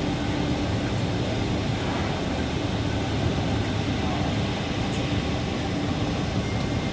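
Steady cabin noise inside a Boeing 747-400 with its engines running on the ground before takeoff: an even rush over a low hum.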